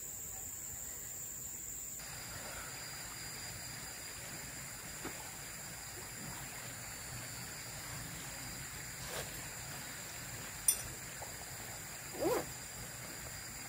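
Insects buzzing steadily at a high pitch, with a second, lower steady tone joining about two seconds in. A single sharp click comes near the end, followed about a second and a half later by a brief sliding, wavering sound.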